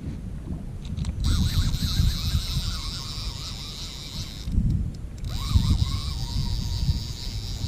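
Multiplier reel spool spinning freely as line pays out toward the bottom, a steady whirring hiss in two runs with a short stop between them, over wind rumbling on the microphone.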